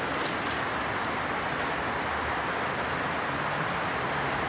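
Steady, even hiss of background noise, with a couple of faint ticks just after the start.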